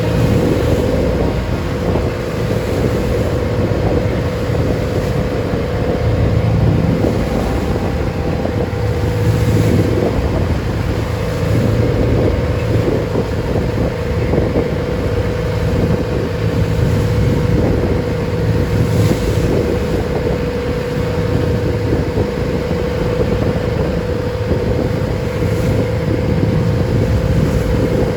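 Engine of a traditional wooden passenger boat running steadily under way, with a constant drone, and wind buffeting the microphone.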